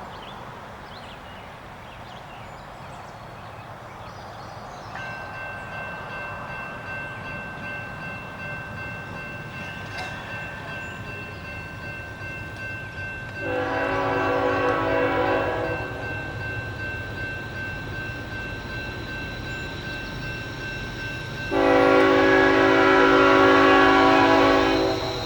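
Two long blasts of a locomotive's Nathan K5HLL five-chime air horn over the low rumble of the approaching freight train's diesel locomotives: the first about halfway through, the second louder and longer near the end. A steady high tone sounds from about five seconds in until the second blast.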